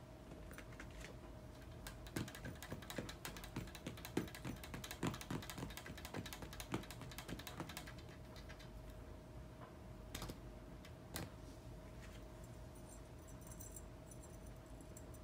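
A cat batting at a feather wand toy under a plastic mesh net makes a run of rapid, light clicks and taps from about two seconds in until about eight seconds, then two sharper clicks later. A faint steady hum runs underneath.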